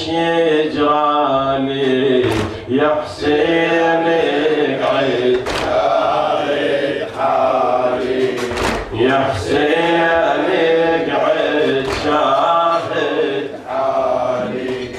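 A male reciter chanting an Arabic latmiya lament for Imam Hussain, with congregation voices joining in. Sharp slaps come through now and then, the congregation beating their chests.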